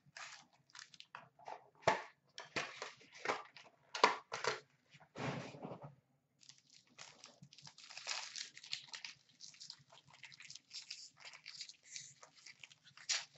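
Trading-card packs and boxes being handled: crinkling wrappers, cardboard taps and rustles in quick, irregular crackles. A louder crinkle about five seconds in, a brief pause, then a longer run of fine crinkling.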